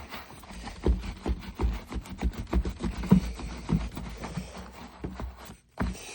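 A brush scrubbing conditioning wax into the fingers of an old leather baseball glove, in quick irregular scraping strokes, with a short break near the end.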